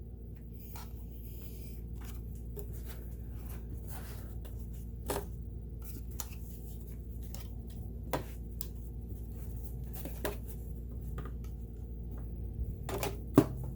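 Light rubbing and handling noises from cleaning parts of a sewing machine by hand, with a few sharp clicks or taps scattered through, over a steady low hum.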